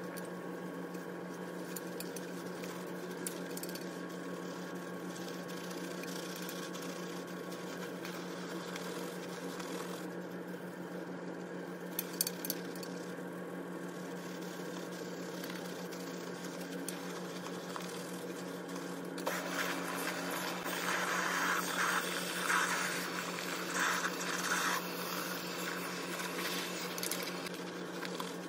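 Hands scrubbing shampoo lather into wet hair, a soft wet squishing that grows louder and more uneven about two-thirds of the way through, over a steady background hum.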